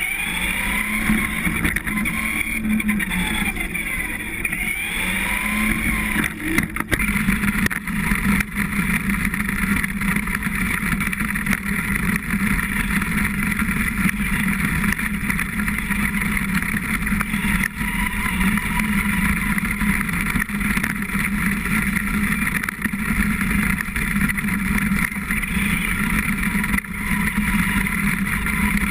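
Onboard sound of a Traxxas Slash 2WD radio-controlled short-course truck driving: its electric motor and gears whine, rising and falling in pitch with the throttle for the first several seconds. After that comes a steadier rush of drivetrain, wind and tyres on dirt and gravel.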